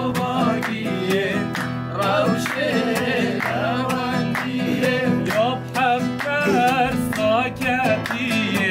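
Nylon-string classical guitar strummed in a steady rhythm, with voices singing along.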